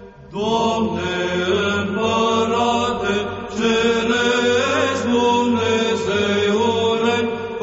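Byzantine Orthodox chant: voices singing a slow, drawn-out melody over a steady held drone (the ison). A brief lull at the very start, then a new phrase begins.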